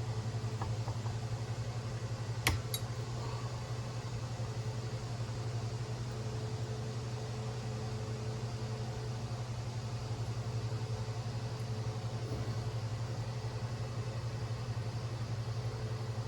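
Steady low machine hum in a small room, with light clicks of small tools and parts being handled; one sharp click about two and a half seconds in.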